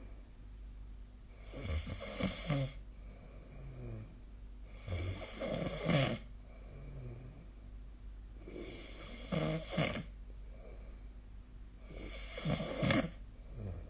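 A person snoring in sleep: four rough snores, one about every three and a half to four seconds, with quieter breaths between them.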